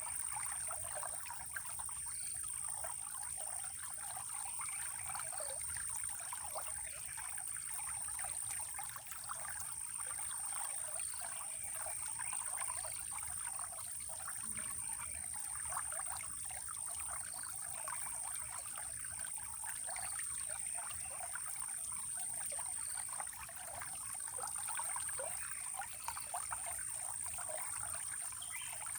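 Running water trickling and splashing steadily, with a continuous high-pitched whine above it and faint short calls repeating every couple of seconds.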